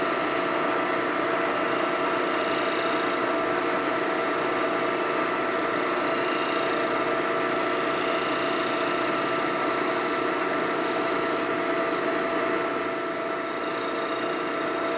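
Lagun vertical milling machine running steadily, with a hum of several constant tones, as a fly cutter surfaces the gasket face of an aluminum panhead cylinder head.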